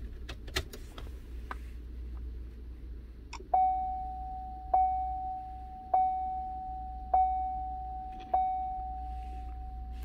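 A few clicks, then the 2015 GMC Sierra's warning chime sounding five times about a second apart, each strike one bell-like tone that fades away, with the ignition switched to key on and the engine off.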